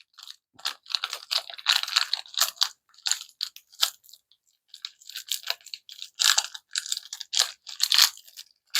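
Plastic packaging crinkling and crackling as it is handled and pulled open, in a quick string of short crackles with a pause of about a second near the middle.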